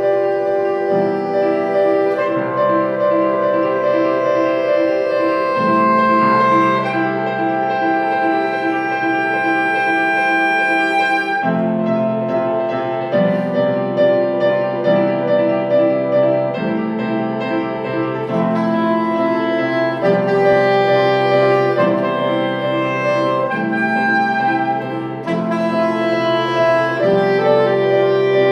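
Soprano saxophone and grand piano playing together: the saxophone holds long notes over a piano part of repeated chords in a steady pulse.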